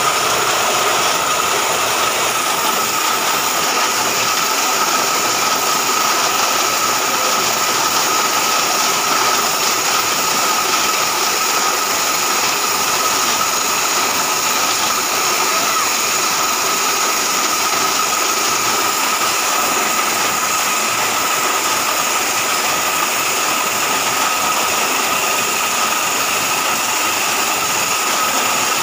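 Mini portable borewell drilling rig running steadily while drilling: a constant loud mechanical noise with a steady whine on top.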